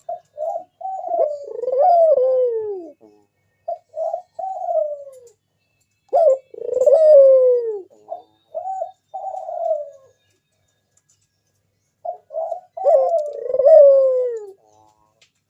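Local puter dove cooing in repeated phrases. Each phrase opens with a few short notes and ends in a longer coo that falls in pitch. There are four such phrases, with short pauses between them.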